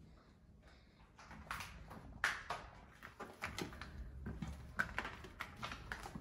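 Irregular footsteps and scuffs on a hard floor, a string of sharp clicks and crunches, the loudest about two seconds in and again near the end.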